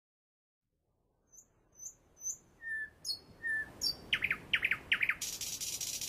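Lovebird chirping: short high chirps and whistles start about a second in and come faster and louder, turning into a quick run of falling chirps, then a steady harsh hiss near the end.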